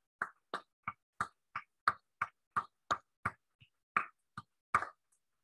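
One person clapping: a dozen or so crisp, separate hand claps at about three a second, stopping about five seconds in.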